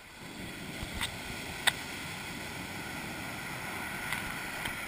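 Ocean surf breaking and foam washing up the sand: a steady rush of water. A few sharp clicks cut through it, the loudest about one and a half seconds in.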